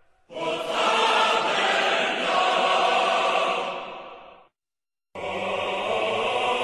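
Group of voices chanting in unison, in two stretches cut apart by a brief silent gap about two-thirds of the way through.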